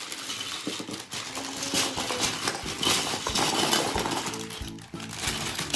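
Loose plastic Lego bricks clattering and clinking as a bag of pieces is tipped out onto the floor, with plastic bag crinkle. Background music plays under it, more clearly in the last second or two.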